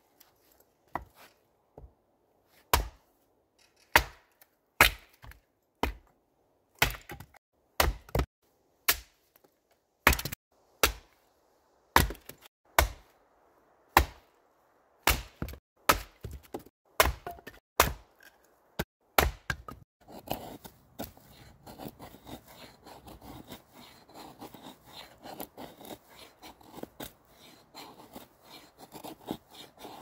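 Hatchet splitting firewood into kindling on a wooden chopping block: sharp chops, about one or two a second, for the first twenty seconds. Then a knife blade scrapes along a stick in quick, continuous strokes, shaving off thin curls.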